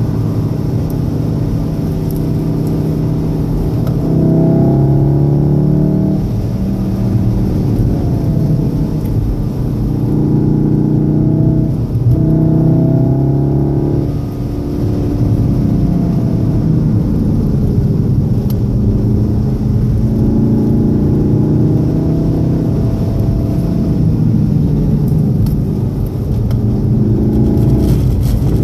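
VW Golf VII R's turbocharged 2.0-litre four-cylinder engine heard from inside the cabin at speed on a soaking-wet track. Its pitch climbs and falls as it pulls and lifts, with several sudden steps at gear changes, over steady tyre, road and spray noise.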